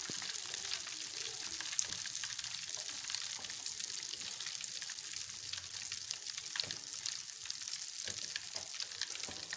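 Flour-coated chicken pieces deep-frying in hot oil: a steady sizzle full of small crackles and pops.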